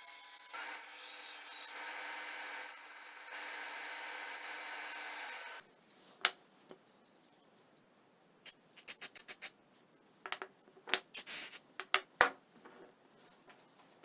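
Hand work on wood: a steady rubbing, sanding-like noise for about five seconds that stops abruptly, then clusters of short sharp scrapes and taps.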